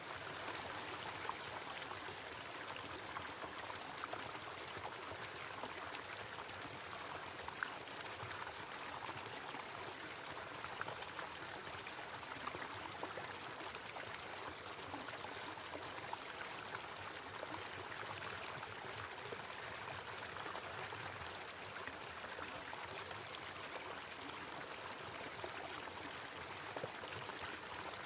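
Small waterfall giving a steady rush of falling, splashing water.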